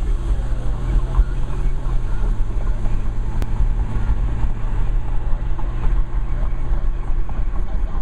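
Steady road and engine noise of a moving car, heard inside the cabin: a continuous low rumble and hum.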